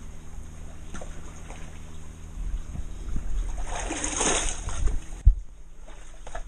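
Seawater lapping and splashing against rocks, with a louder rush of water about four seconds in and a single sharp knock just after five seconds.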